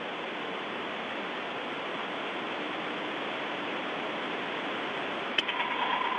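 Steady hiss of static on an open radio voice channel, limited to a narrow telephone-like band. About five seconds in, a click is followed by a short buzzing tone of rapid beeps.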